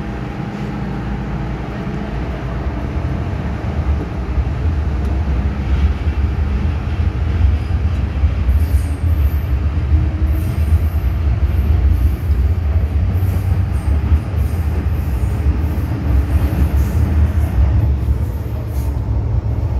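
MTR metro train in an underground station, a loud steady low rumble that grows heavier about four seconds in.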